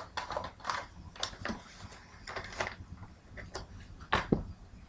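Packaging being handled by hand during an unboxing: scattered light clicks and rustles, with a sharper knock about four seconds in.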